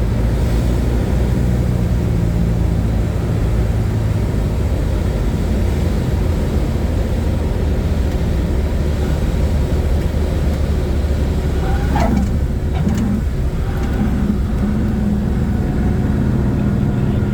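Light aircraft's piston engine and propeller droning steadily, heard from inside the cabin.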